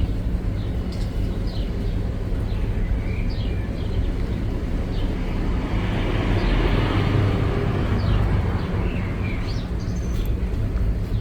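Outdoor field recording: birds give short chirps over a steady low rumble, and a broad rushing noise swells and fades in the middle.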